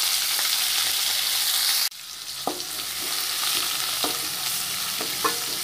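Chopped onion and tempering spices (mustard seeds, cumin, urad dal, dried red chillies) frying in hot oil in a metal kadai. A loud, even sizzle drops suddenly about two seconds in. After that comes a quieter sizzle with a wooden spatula scraping and knocking against the pan as the onions are stirred.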